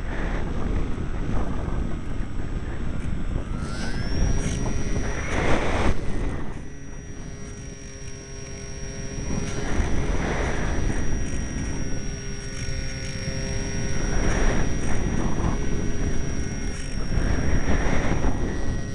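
Strong wind buffeting the microphone: a constant low rumble that surges in gusts every few seconds. A faint, steady high whine runs under it from about four seconds in.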